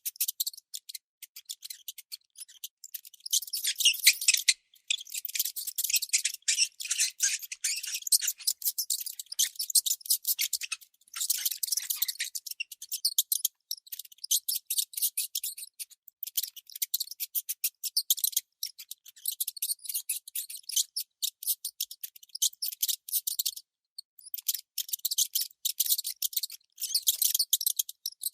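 Baby mouse squeaking: rapid, high-pitched chirps in long runs, broken by brief pauses a few times.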